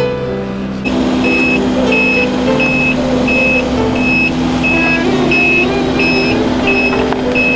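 Reversing alarm of a heavy work vehicle beeping steadily, about three beeps every two seconds, over the vehicle's running diesel engine; the beeping starts about a second in.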